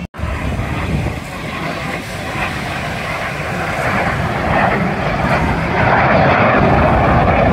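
Engine noise of a small aerobatic display aircraft passing overhead, a steady roar that grows louder in the last few seconds, just after a brief dropout at the very start.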